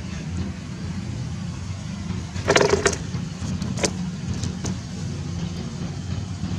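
A motor running steadily with a low hum, broken by a quick cluster of sharp clicks and knocks about two and a half seconds in and a single click a second later.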